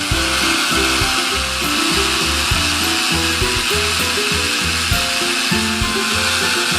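Background music: a melody of short, stepping notes over a steady hiss.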